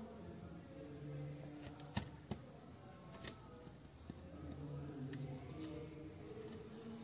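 Faint soft background music, with three light clicks about two to three and a half seconds in as the aluminium crochet hook is handled and set down on the table.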